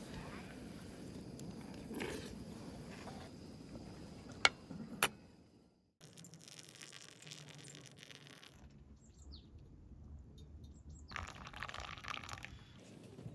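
Quiet outdoor ambience with a few faint bird chirps, two sharp clicks about four and a half and five seconds in, and a short rustling noise near the end.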